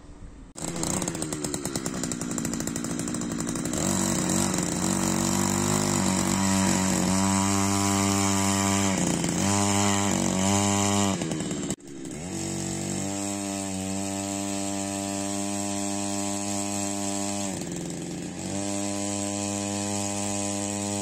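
Small engine of a power tool running, its pitch rising and falling several times as it is throttled, with a brief break about twelve seconds in.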